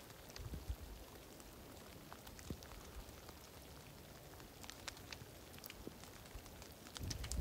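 Light freezing rain falling: a faint steady hiss with scattered single drops ticking.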